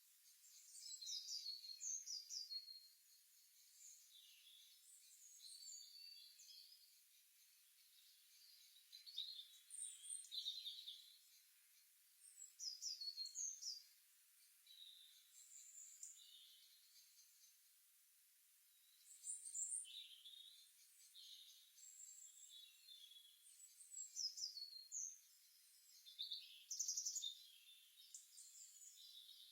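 Songbirds chirping and singing in short, high phrases every few seconds, with some loud, near bursts and fainter calls in between.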